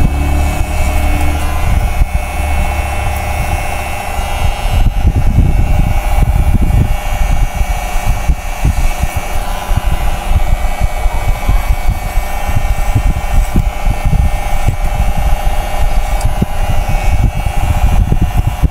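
Cordless hair clipper with a 1.5 mm guard running steadily as it cuts short hair, giving a constant hum, under a louder rough, crackling low rumble.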